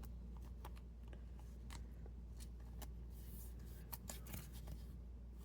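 Trading cards being handled and sorted on a tabletop: faint, irregular light ticks and short brushing slides of card stock.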